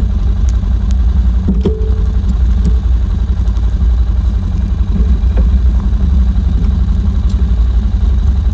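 Four-wheeler (ATV) engine running steadily, with a few light clicks and clatters over it.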